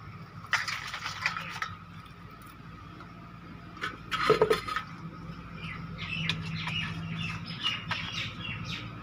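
Birds chirping and calling, with two louder short calls, about half a second and about four seconds in, and a run of small chirps near the end.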